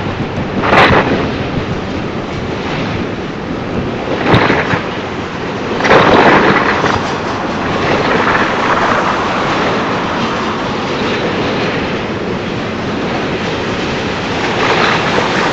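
Double-stack container cars of a freight train rolling past on the rails: a steady rumble and rail noise from the wheels, rising in several louder swells along the way.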